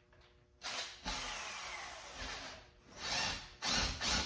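Cordless drill backing a screw out of wood: a run of about two seconds starting just over half a second in, with a falling whine, then two shorter bursts near the end.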